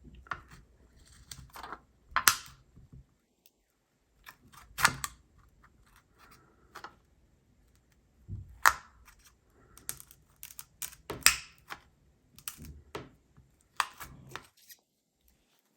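A prying tool sliding under a Samsung Galaxy S10's back glass to cut the adhesive: irregular sharp clicks and short scrapes, about a dozen, against the glass and frame.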